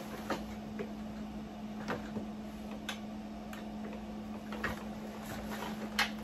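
Scattered light clicks and taps at uneven intervals as the plastic body and handle of a Bissell ProHeat 2X Revolution upright carpet cleaner are handled and tilted and a screw and Phillips screwdriver are lined up. A steady low hum runs underneath.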